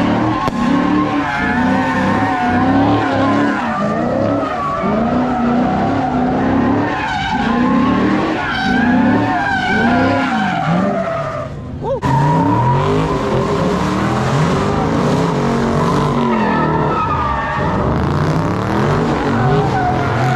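Drift car's engine revving up and down over and over, with tyres squealing as it spins donuts. The sound dips briefly and then cuts abruptly about twelve seconds in.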